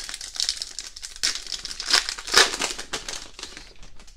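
Foil trading-card pack wrapper crinkling and tearing as the pack is torn open by hand, with a couple of louder crinkles about two seconds in.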